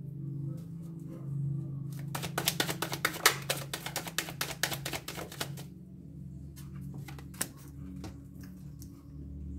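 A deck of tarot cards being shuffled by hand: a rapid clatter of cards flicking against each other from about two seconds in until about five and a half seconds, then a few lighter taps. Background music with steady low notes runs underneath.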